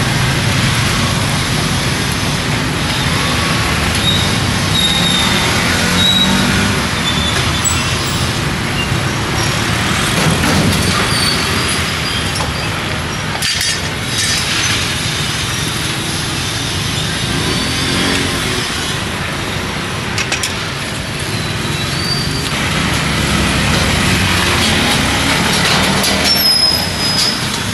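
Steady street traffic noise from passing vehicles, with a few brief high squeals scattered through it.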